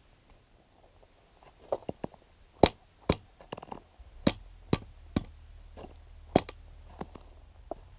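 A series of short, sharp knocks and clicks, about a dozen at an irregular pace, the loudest about two and a half seconds in and another strong one near six and a half seconds.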